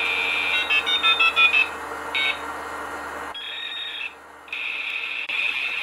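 Electronic intro sound: a steady, high buzzing tone. A quick run of short beeps at stepped pitches comes about half a second in, and the sound dips briefly around four seconds in.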